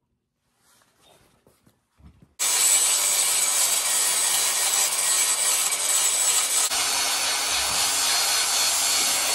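Angle grinder with a flap disc starting up about two seconds in and running steadily as it grinds scratches, chips and nicks out of a longhorn steer's horn.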